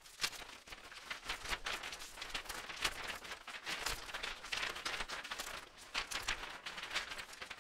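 Intro sound effects under a channel logo animation: a dense, irregular run of sharp noisy hits and crackles with no clear tune.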